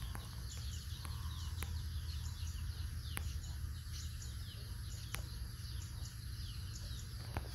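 Small birds chirping busily in the background, many short falling chirps, over a steady low rumble, with a few faint sharp clicks.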